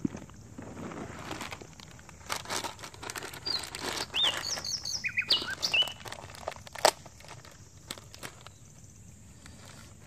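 Snack packet rustling and crinkling in the hands for a few seconds, with several short bird chirps over it in the middle and one sharp click near the end of the rustling.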